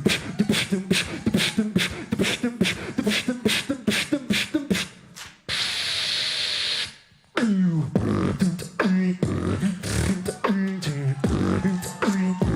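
Human beatboxing: a fast vocal beat of kick, snare and hi-hat sounds. About five and a half seconds in it breaks into a sustained hiss, like a held cymbal, for a second and a half, then drops out briefly and comes back with pitched bass sounds that slide down, under the beat.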